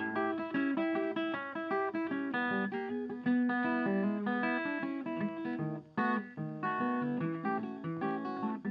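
Background music led by a plucked guitar, with short notes picked in quick succession.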